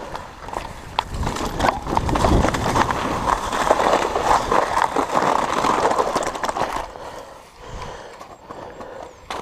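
Mountain bike rattling and knocking as it rides down a rough, snowy trail, with a steady rush of tyre and trail noise. The sound is loudest for several seconds in the middle and eases near the end as the bike slows.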